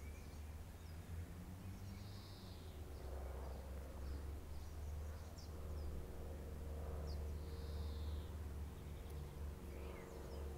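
Quiet garden ambience: a steady low rumble and a few faint high bird chirps. Under it, a person breathes slowly and calmly into a clip-on microphone, with two gentle breaths swelling and fading.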